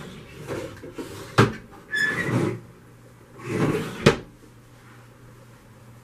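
Wooden kitchen drawer being pulled open and pushed shut: sliding noise with sharp knocks, the loudest a bang about four seconds in as it closes.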